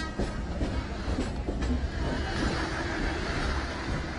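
Train running across a steel arch railway bridge: a steady, even rumble of the wheels and carriages.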